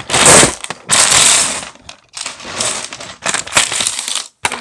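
Handfuls of plastic Lego bricks rummaged and stirred, clattering in four bursts of dense clicking.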